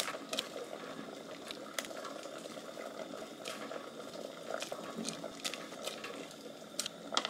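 A pot of sujebi soup broth boiling, a steady bubbling with scattered small pops.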